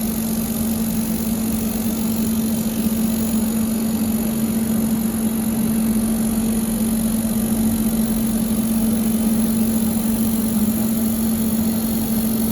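Steady machine hum of running welding-cell equipment, a constant low tone over even background noise and hiss, with no change in pitch or level.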